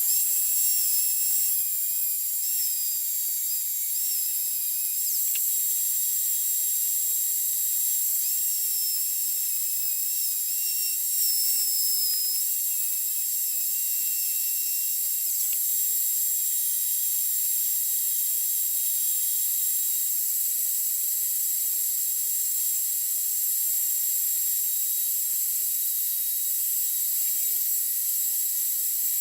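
Power tools whining steadily as a drill-driven homemade lathe spins a wooden pipe sleeve while a grinder shapes it round. A wavering higher tone shifts in pitch through the first half and then drops out, leaving an even whine.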